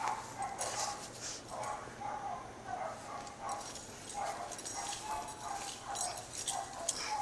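A dog at play with its toy: a string of short, high squeaks, roughly one every half second with a pause in the middle.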